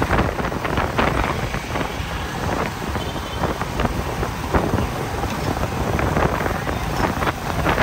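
Wind buffeting the microphone of a moving rider, in irregular gusts over a low rumble of motorbike and street traffic.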